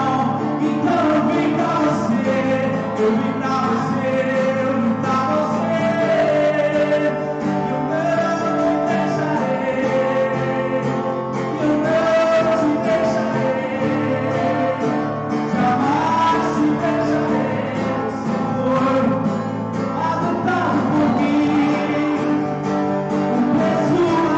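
Live worship song: an acoustic guitar strummed while a man and a woman sing into microphones, the melody held in long, continuous sung lines.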